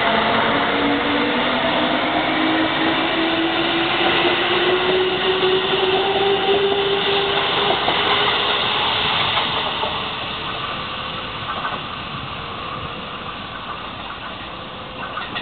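Kintetsu 1026 series electric train pulling out and accelerating: a motor whine rising slowly in pitch over the rumble of wheels on rail. The sound fades steadily from about ten seconds in as the train draws away.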